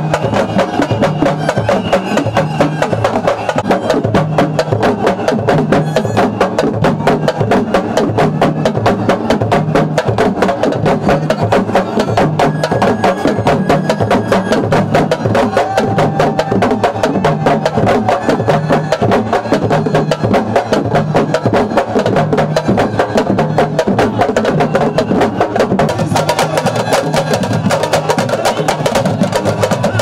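An ensemble of Senegalese sabar drums playing a fast, dense rhythm without a break, struck with sticks and bare hands. The sound turns sharper and brighter about four seconds before the end.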